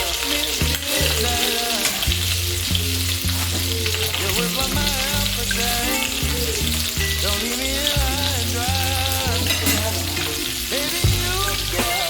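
Beef sausages frying in hot cooking oil in a pan, a steady sizzle, with background music playing over it.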